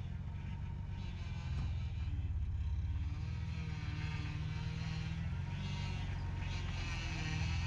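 Ford F-150 pickup engine running with a low, steady rumble as the truck creeps forward over packed snow.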